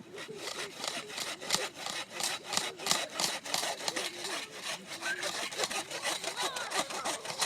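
Zippo 4-in-1 Woodsman's saw blade cutting through a Christmas tree trunk in quick, even back-and-forth strokes.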